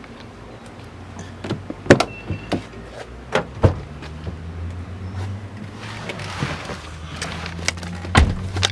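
Several sharp clunks and knocks over a low steady hum that sets in about halfway through.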